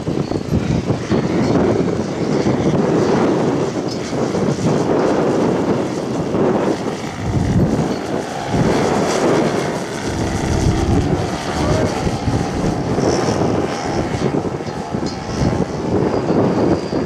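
Engine and propeller of a radio-controlled scale Piper L-4 Cub model plane running in flight. The pitch swings up and down around the middle as the plane makes a close pass.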